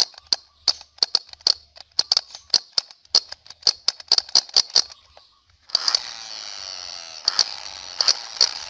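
Toy submachine gun firing its shot sound effect: a run of sharp cracks, a few per second, that stops about five seconds in. After a brief pause a second toy gun starts a continuous firing effect, a hiss with ringing, sliding tones and more cracks over it.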